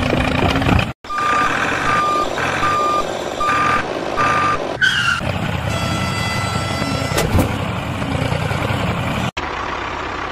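Truck engine running with a reversing alarm beeping five times, evenly spaced; then a short falling whine and a steady mechanical hum.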